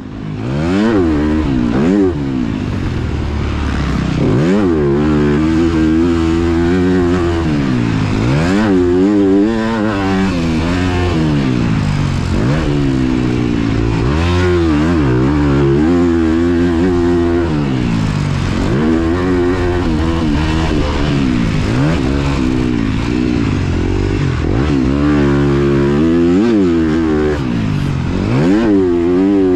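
2023 Honda CRF250R's single-cylinder four-stroke engine being ridden hard on a motocross track. The engine pitch climbs and drops over and over as the throttle is worked through the gears.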